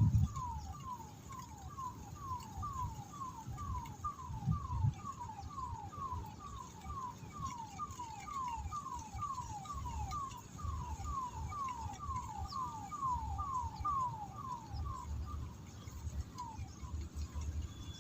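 An animal calling: a short whistled note falling in pitch, repeated steadily about two and a half times a second, stopping about 15 seconds in with one last note shortly after, over a low rumble.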